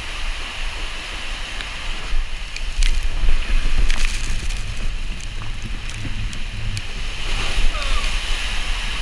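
Water rushing and churning under a multi-rider raft speeding down an enclosed water-slide tube, with heavy wind rumble on the microphone and a few sharp knocks as the raft hits the slide walls.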